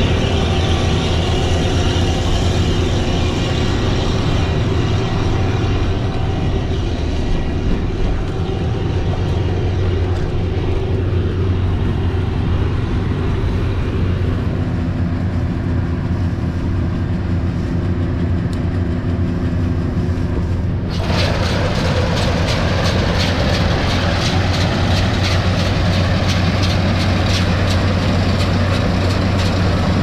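Heavy farm machinery running steadily with a deep engine hum. About two-thirds of the way through, the sound changes suddenly to a brighter, busier machine noise with a rapid fine rattle.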